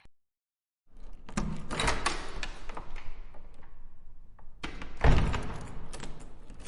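A door lock being unlocked and locked again with heavy reverb, as in a hallway. From about a second in comes a run of metallic latch clicks and rattles that fades in a long echo. A second run of clicks follows, with a heavy thunk about five seconds in.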